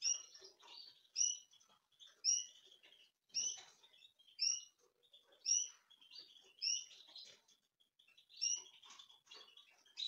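Canary nestlings begging for food while being hand-fed with a syringe: high, sharp cheeps, about one a second, over faint soft clicks and rustles.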